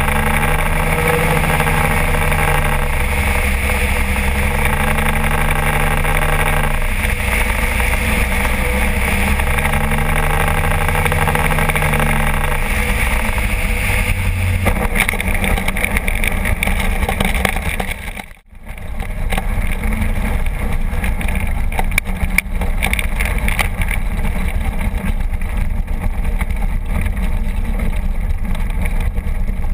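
Kolb ultralight aircraft's engine and propeller running steadily in flight, mixed with heavy wind rush on the microphone. The engine note rises and falls gently. About eighteen seconds in the sound breaks off for a moment, then the engine runs on with a rougher, noisier sound as the aircraft is near the ground.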